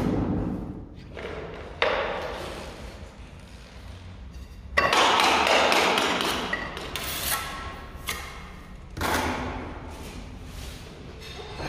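Ceramic tile pieces and a mortar trowel knocking and clattering on a tiled floor: several separate thuds with a short ring after each, the loudest about five seconds in.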